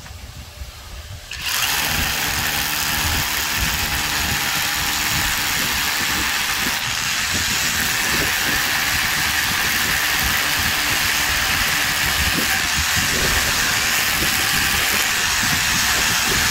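Einhell Herocco 18V brushless cordless rotary hammer drilling into reinforced concrete through a base-plate hole, a steady hammering drill sound that starts about a second and a half in and runs without a break until it stops abruptly at the end.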